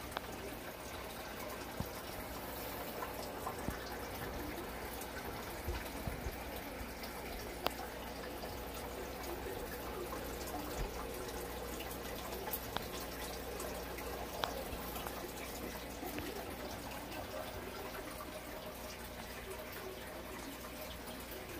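Aquarium water bubbling and trickling steadily from a stream of air bubbles, with a few faint clicks scattered through it.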